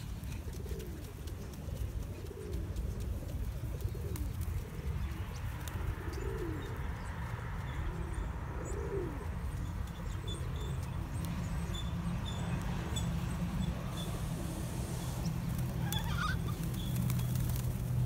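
Pigeons cooing over and over in low, arched calls, with a steady low rumble underneath and a few faint higher chirps.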